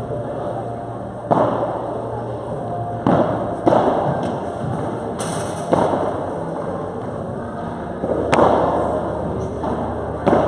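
Padel ball being struck by rackets and bouncing during a rally: about seven sharp hits at uneven spacing, each ringing out with a hall echo.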